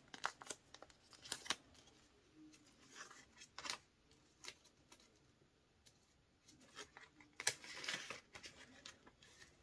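Faint rustling of a paper banknote being folded and handled, with light clicks, and a louder crinkling of a clear plastic binder pocket near the end as the money is tucked in.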